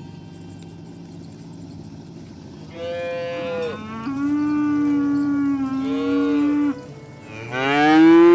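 Cow mooing twice: a long moo starting about three seconds in, held at a steady pitch for several seconds, then a louder moo near the end that rises in pitch.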